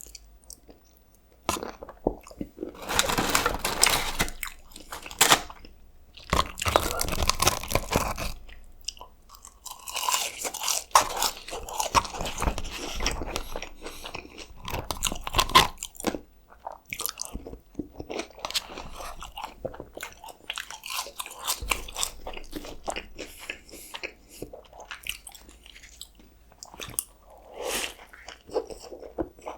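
Close-miked eating: biting, crunching and chewing, starting with a spoonful of a Reese's concrete mixer (frozen custard blended with Reese's candy). The mouth sounds come in clusters, loudest a few seconds in.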